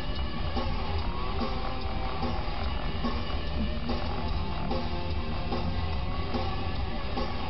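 Guitar music playing steadily.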